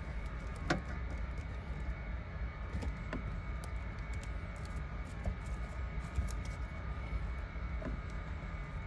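Faint rustling and a few light clicks of fingers sorting through a car's bundled wiring harness, over a steady low background hum.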